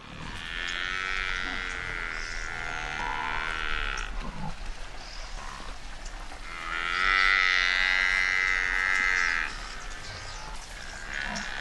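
African buffalo bellowing: two long, drawn-out calls of about three and a half seconds each, with a third beginning near the end.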